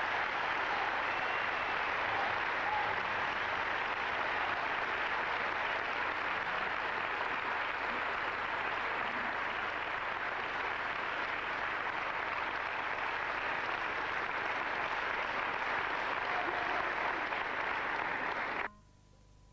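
A large hall audience applauding steadily. The applause cuts off suddenly near the end.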